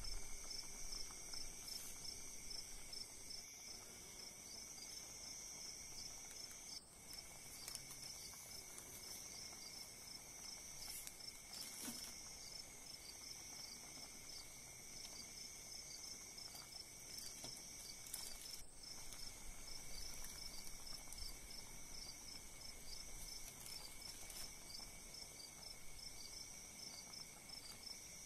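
Faint, steady insect chirring in several high bands, with a chirp that pulses evenly a few times a second.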